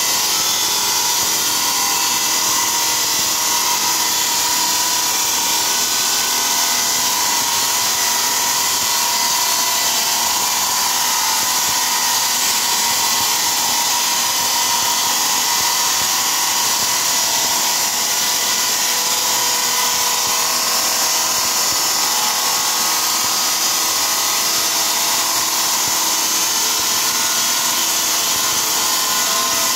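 Motorized circular stone-cutting saw slicing through a tile strip: a steady, unbroken high whine of the blade in the stone.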